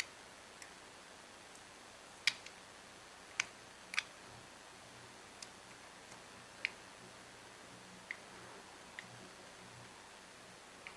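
Faint, scattered light clicks, about six spread irregularly, from handling a small carburetor and screwdriver while the mixture screws are run in to seat.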